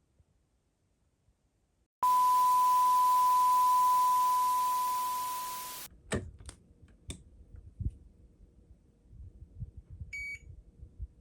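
A loud, steady electronic beep at a single pitch, lasting about four seconds over a hiss, then cutting off. It is followed by a few sharp clicks and knocks and a short, higher beep near the end.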